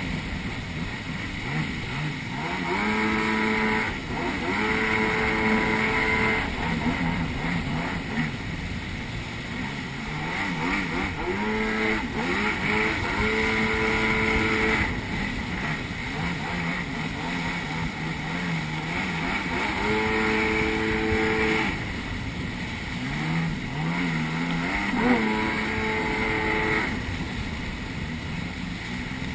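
Kawasaki jet ski's engine running at speed, its pitch stepping up and down several times as the throttle changes, over the steady rush of water spraying off the hull.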